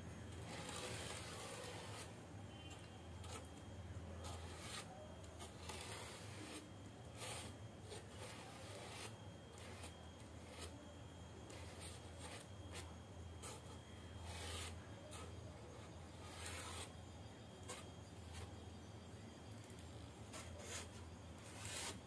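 Irregular short scraping and rubbing on a thermocol (expanded polystyrene) sheet as it is handled, over a steady low hum.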